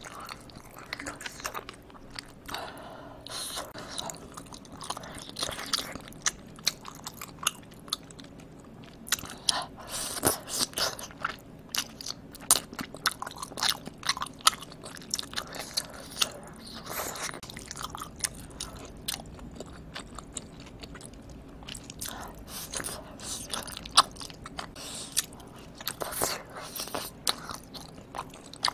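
Close-miked eating of spicy tteokbokki: sticky, wet chewing and mouth smacks on chewy rice cakes in thick sauce. Sharp clicky smacks come irregularly throughout.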